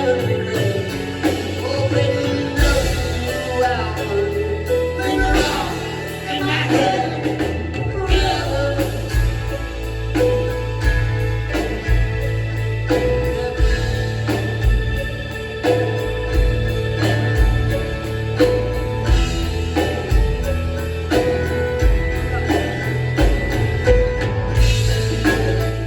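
Live rock band playing the song with a steady beat, bass and drums.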